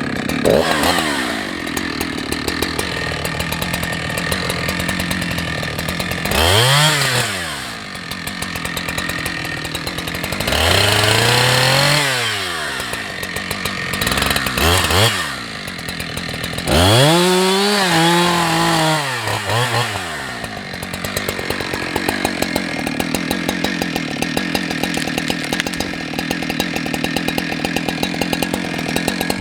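Two-stroke Husqvarna 365 chainsaw running, idling between four throttle bursts in which the engine speed rises and falls over one to three seconds each. It settles to a steady idle for the last several seconds.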